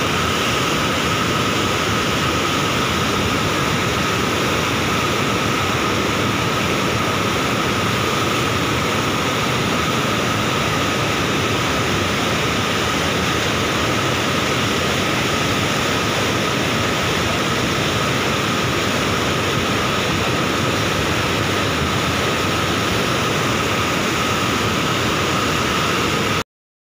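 Floodwater pouring out of a dam's open spillway gates and crashing over boulders: a loud, steady roar of rushing water, cutting off suddenly near the end.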